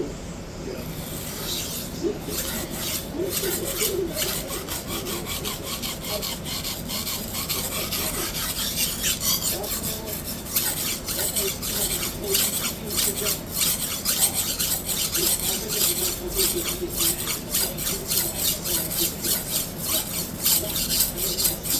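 Steel knife blade ground back and forth on a sharpening stone under firm pressure, a run of repeated rasping strokes, cutting a fresh bevel into the edge. The strokes come thicker and a little louder about halfway through.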